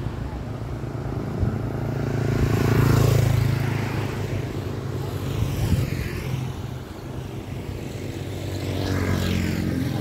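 Motor vehicles passing on the road: a low engine hum swells to its loudest about three seconds in, then fades. A motorcycle engine grows louder again as it comes by near the end.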